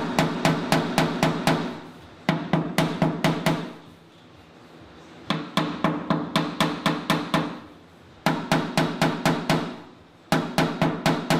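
A small body hammer lightly and rapidly tapping the steel of a truck's front fender, about five ringing taps a second in short runs with brief pauses, to knock down a high spot so it can take more filler.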